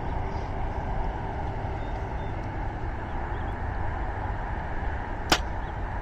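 A compound bow shot from full draw about five seconds in: one sharp snap as the string is released, over a steady low background rumble.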